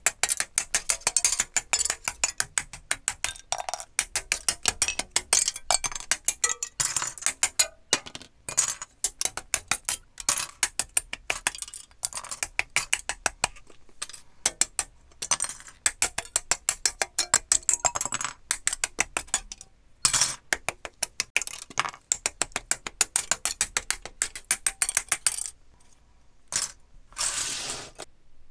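Plastic model-kit parts being snipped off their sprue runners with side-cutting nippers: a run of sharp plastic clicks, several a second, broken by short pauses. Near the end, a handful of loose plastic parts rattle as they are swept together.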